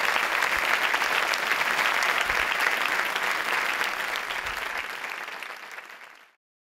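Audience applauding, a dense patter of many hands clapping that fades over the last couple of seconds and cuts off about six seconds in.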